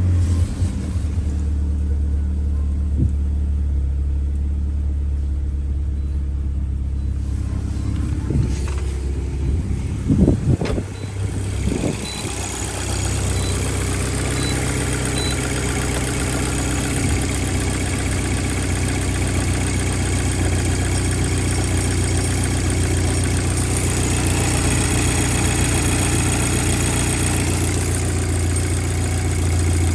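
VW Golf Mk5 GTI's 2.0 TFSI turbocharged four-cylinder engine idling steadily just after a cold start, following a repair to the top of its high-pressure fuel pump meant to cure a heavy misfire. A few sharp knocks come around ten seconds in, and the sound grows louder and fuller from about twelve seconds on.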